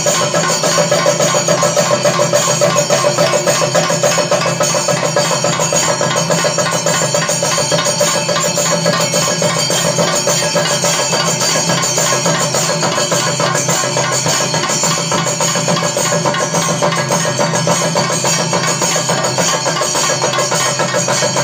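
Kerala thayambaka ensemble in its kalasam (climax section): stick-beaten chenda drums in fast, continuous strokes, with the deeper valanthala chendas keeping the beat and ilathalam hand cymbals clashing in time. The playing is loud and steady throughout.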